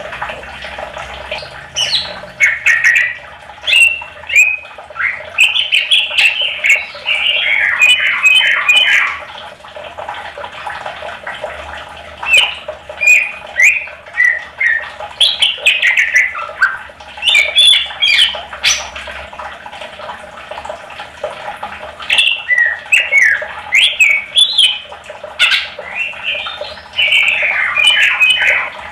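Green leafbird (cucak ijo) singing in three long bouts of quick, varied chirps, squawks and slurred whistles with short pauses between, over a steady low hum.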